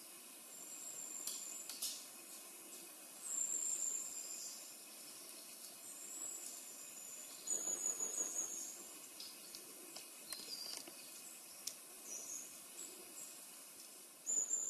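Forest ambience: high, thin calls from small wild creatures, each about a second long, come about five or six times over a steady faint hiss. A few faint clicks are scattered through it.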